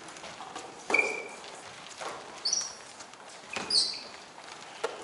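Basketball shoes squeaking on an indoor court floor: several short, high chirps, some rising in pitch. Between them come dull thuds on the floor.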